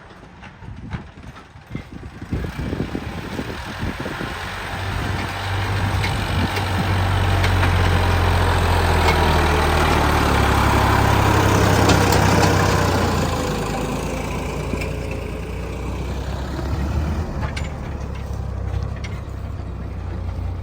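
Heavy diesel engine running steadily, growing louder a couple of seconds in, loudest around the middle, then easing off.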